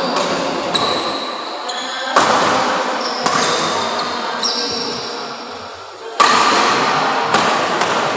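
Badminton rally: a string of sharp racket hits on the shuttlecock at irregular spacing, the loudest about six seconds in, echoing in the hall. Short high squeaks of shoes on the court floor come between the hits.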